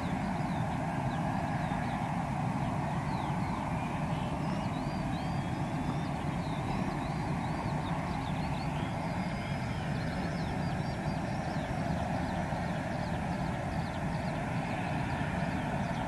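Eurofighter Typhoon's EJ200 turbofan engine starting up: a steady rushing noise, with a whine that rises slowly in pitch from a few seconds in as the engine spools up.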